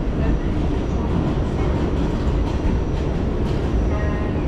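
New York City subway car running on track, heard from inside the car: a steady heavy rumble of wheels on rail with a few sharp clicks, and a faint whine near the end.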